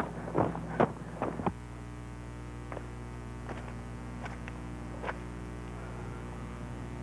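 A steady low hum with a stack of even overtones, with a few faint clicks over it. There are short, louder sounds in the first second and a half.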